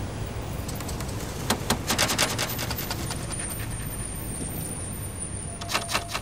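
Low, steady city traffic rumble overlaid with bursts of crackling clicks from a record stylus, one cluster about two seconds in and another near the end.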